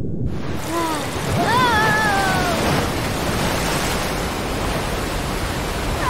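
Cartoon sound effect of a rushing flood of water: a loud, even wash of noise that starts suddenly just after the beginning. Brief wavering cries rise and fall about one to two seconds in.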